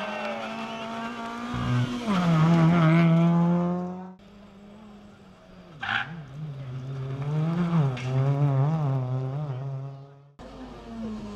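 Suzuki Swift rally car engines driven hard on a tarmac stage. The first car revs high and changes up a gear about two seconds in. After a cut, another Swift's engine rises and falls in revs as the throttle comes on and off, with a short sharp noise about six seconds in.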